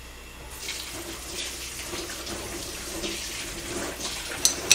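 Kitchen tap running as things are rinsed clean after handling raw beef, starting about half a second in. A single sharp knock near the end.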